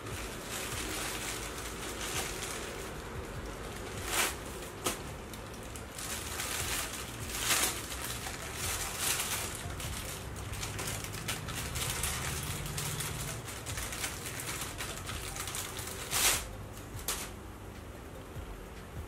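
Plastic bubble wrap and a thin plastic bag crinkling and rustling as they are handled and pulled off a camera body, with a few sharper, louder crackles about four seconds in, around seven and a half seconds, and near sixteen seconds.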